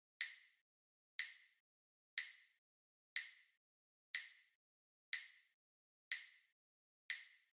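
Metronome clicking a steady beat, about one click a second, eight clicks in all: a two-bar count-in before the next rhythm.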